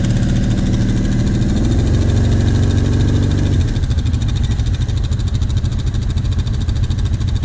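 ATV (quad bike) engine running under throttle, its pitch rising a little about two seconds in, then dropping back to an uneven idle about halfway through.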